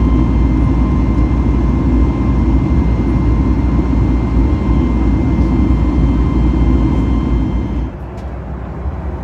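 Boeing 737 MAX 8 cabin noise from a window seat beside its CFM LEAP-1B engine: a loud, steady rush of engine and airflow with a faint steady whine. About eight seconds in it drops abruptly to a quieter cabin hum.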